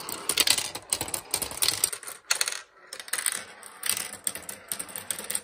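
Blue plastic marbles of a Turing Tumble marble-powered computer rolling and dropping through its plastic board parts: a rapid run of small hard clicks and clacks, with a short lull about two and a half seconds in.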